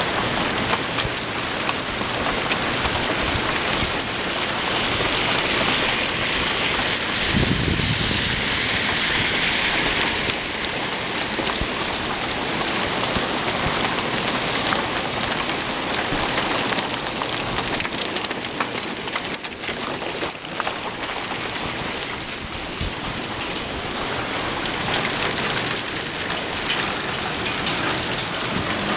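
Small hail falling steadily and hitting the ground and surfaces: a dense hiss of countless tiny impacts, heavier for a few seconds near the start. A brief low thump about seven seconds in.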